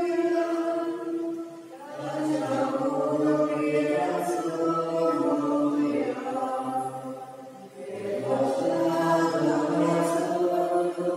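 A slow hymn or chant sung in long, held notes, a higher voice joined about two seconds in by a lower one, with short breaks between phrases about two and eight seconds in.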